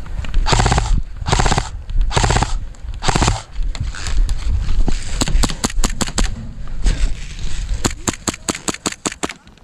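Airsoft guns firing: three short full-auto bursts in the first three seconds, then strings of separate single shots from about five seconds in and again in the last two seconds.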